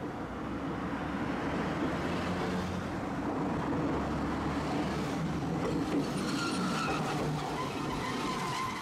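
A Tosaden streetcar running along street-embedded rails toward the listener and passing close by, its wheels and running gear rumbling, mixed with cars and a small truck driving past on the road alongside. The noise grows over the first couple of seconds and then holds, and a thin high whine joins in as the tram draws near.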